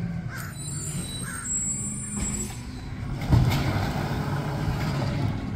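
Automated side-loader garbage truck's engine running steadily, growing louder with a sudden step about three seconds in.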